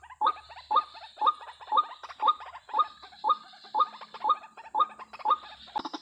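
White-breasted waterhen (ruak-ruak) calling, a repeated downward-sweeping croak about twice a second. A sharp click comes just before the end.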